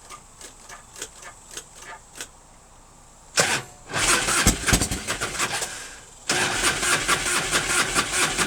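1997 Harley-Davidson Fatboy's Evolution V-twin turned over on the electric starter in two cranking bursts, the first about three seconds in and the second from about six seconds in, without catching. This is a hard start after a month of sitting with a dry carburetor bowl, and the owner suspects he may have flooded it.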